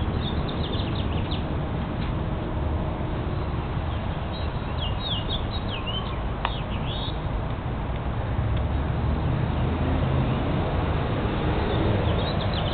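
Small birds chirping in short, high, downward-sweeping calls that come in a few clusters, over a steady low rumble.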